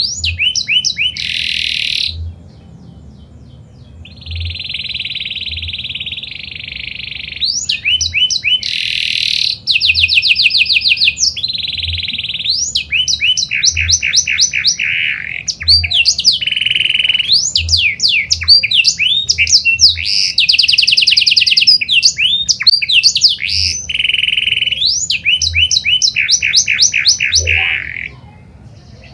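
Canary singing a long, varied song of fast rolling trills and held buzzy notes. The song eases off briefly about two seconds in and stops shortly before the end.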